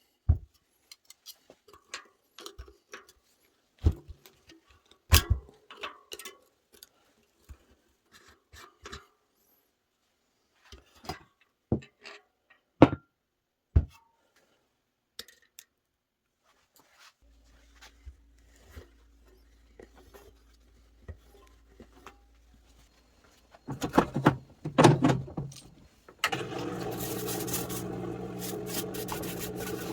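Scattered sharp knocks and clicks of metal parts and tools being handled on a workbench. Near the end, after a brief clatter, a machine motor starts and runs steadily with a low hum.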